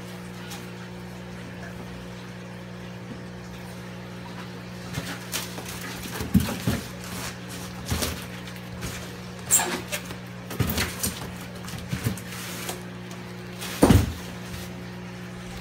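Styrofoam shipping box and cardboard flaps being handled, giving scattered knocks, scrapes and rustles. The loudest knock comes near the end. A steady low hum runs underneath.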